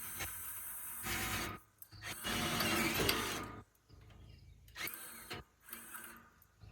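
Power drill running in several on-off bursts as it drills holes in a metal chair frame, the longest burst about a second and a half long.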